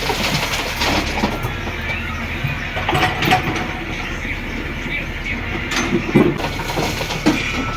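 Backhoe loader's diesel engine running steadily, with several clanks and thuds from the machine as it works.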